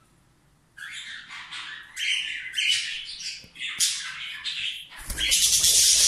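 Cockatiels squawking in a quick series of short, harsh calls, starting about a second in and becoming louder and almost continuous near the end.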